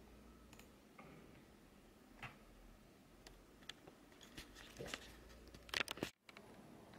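Scattered light clicks and taps in a small room. A quick run of louder ones comes near the end, then the sound cuts out for a moment.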